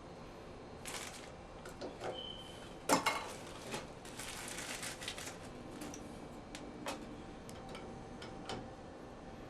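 Scattered light clicks and clinks of small hard parts and tools being handled, with a sharper knock about three seconds in and a short rattle around four to five seconds.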